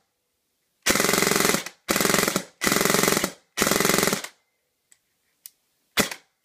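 Airsoft electric gun (JG BAMF M4 with a ZZI high-torque motor and short-stroked gearbox) firing four short bursts, each under a second, its gearbox cycling in a fast, even rattle. After the bursts come a couple of faint clicks and one brief shot near the end.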